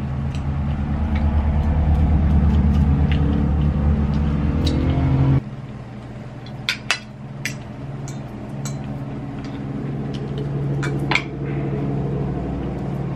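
A loud, steady low mechanical hum that cuts off suddenly about five seconds in, leaving a quieter hum behind. Scattered sharp clinks of cutlery and dishes run through it.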